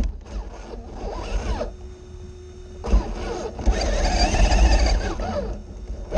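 Onboard sound of an Axial SCX6 RC rock crawler: its electric motor and gears whine, the pitch rising and falling with the throttle as it crawls over rock. About two seconds in the whine drops away for about a second, leaving only a faint steady hum, then picks up again.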